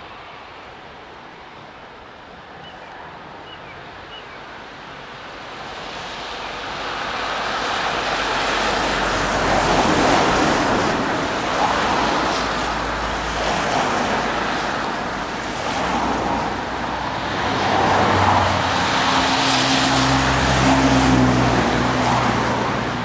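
Steam locomotive working a train of coaches up a grade, its exhaust and running noise growing louder from about six seconds in as it approaches, then staying loud.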